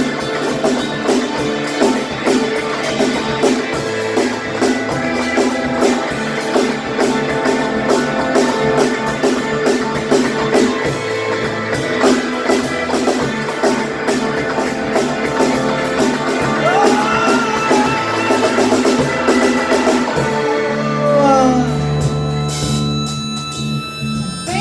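Live rock band playing an instrumental passage: drums beating steadily under chords, with notes sliding down in pitch near the end. About four seconds before the end the drums drop out, leaving long held low notes ringing.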